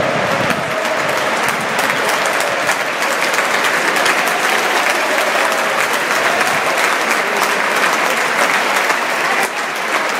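Large football stadium crowd applauding: steady, dense clapping from thousands of fans in the stands, with the last of a chant dying away at the start.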